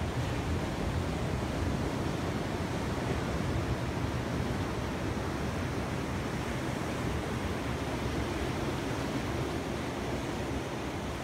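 Ocean surf breaking and washing on a beach: a steady, even rush of waves with no distinct single breaks.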